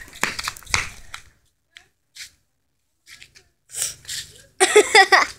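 Scattered short scuffs and knocks, then a loud, short high-pitched voice with a bending pitch near the end.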